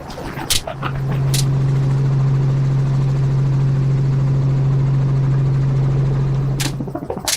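Hunting helicopter's engine and rotors giving a steady low drone. It is broken by sharp gunshots: two in the first second and a half and one near the end.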